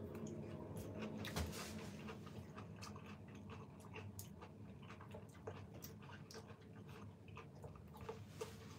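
A person chewing a piece of banpeiyu pomelo flesh: a run of faint small wet clicks and smacks.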